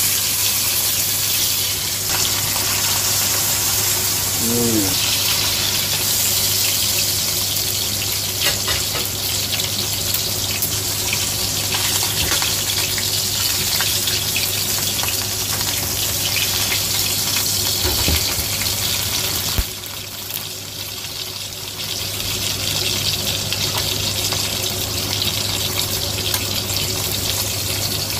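A whole yellow croaker pan-frying in oil in a stainless steel wok: a steady sizzle with scattered crackles over a low hum. The sizzle drops off briefly after a knock about twenty seconds in, then picks up again.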